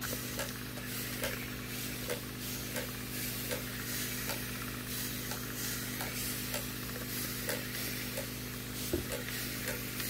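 Fine bubbles fizzing in freshly filled aquarium water, over a steady low hum, with a soft tick repeating a little faster than once a second.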